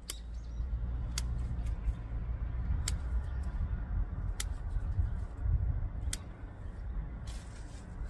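Garden scissors snipping spent flower stalks: five short sharp clicks, one to two seconds apart, over a steady low rumble.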